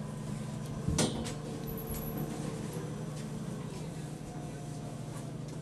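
Steady low hum of a passenger boat's engine heard inside the cabin, with a single sharp knock about a second in.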